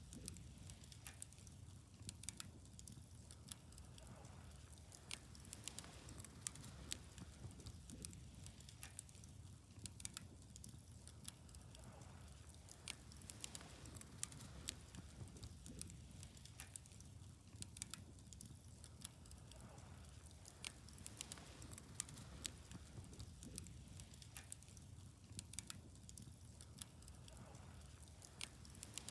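Wood fire burning, crackling with frequent, irregular pops and snaps over a low, steady rumble.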